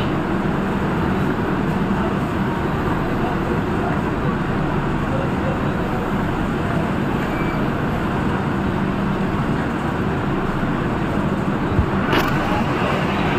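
Railway platform ambience: a steady hum and rumble from a standing passenger train, with people talking on the platform and a brief knock near the end.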